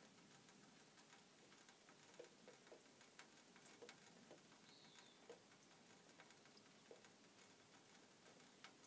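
Near silence: a faint outdoor hiss with scattered light ticks and one short high chirp about five seconds in.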